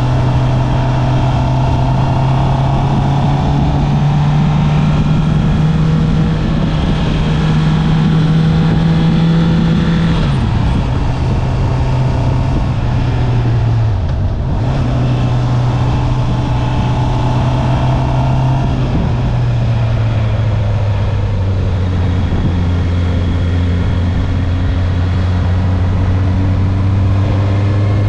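Stock Honda CB650R's 649 cc inline-four engine pulling along at a steady cruise while riding. Its note climbs slightly, drops about a third of the way in, dips briefly near the middle and settles lower about two-thirds of the way through.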